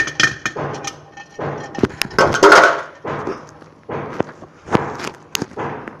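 Irregular knocks and thuds of an African grey parrot moving about in a clay pot nest and climbing out of it, with a longer, louder scuffle about two and a half seconds in.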